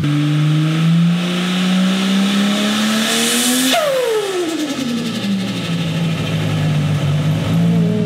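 Holden VL Turbo's RB30 turbocharged straight-six revving up for about three and a half seconds. When the throttle snaps shut, the turbo whistle falls away with a flutter through the dose pipe, and the engine drops back to idle. It is a clean, deep dose that sounds much less tinny.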